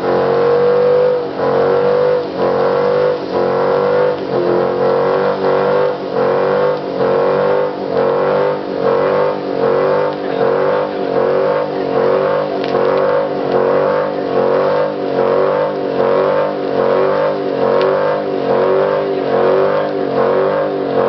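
Dodge Challenger R/T's 5.7-litre Hemi V8 held at high revs during a burnout, rear tyres spinning against the track. The engine note rises and dips in a steady pulse about one and a half times a second.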